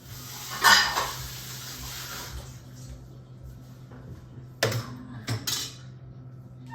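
A metal spoon scraping food around a metal pot, then three sharp clanks of the spoon against the pot.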